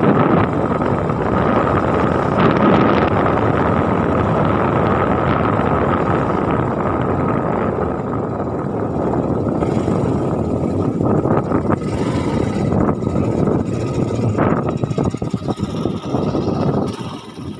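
A moving vehicle's engine running, with wind buffeting the microphone and a steady high whine through the first half. About halfway through, the noise thins and turns choppier.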